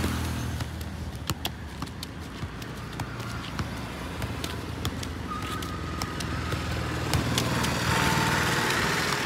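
Football being juggled on foot, each touch a short tap about twice a second, over the steady hum of passing road traffic. A vehicle engine grows louder near the end.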